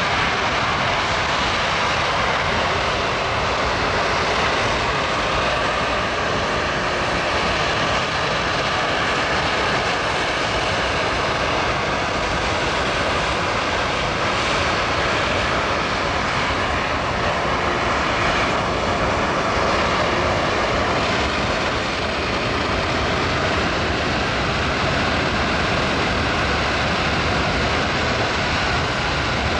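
A C-17 Globemaster III's four Pratt & Whitney F117 turbofan engines running, a loud steady jet noise that holds level throughout.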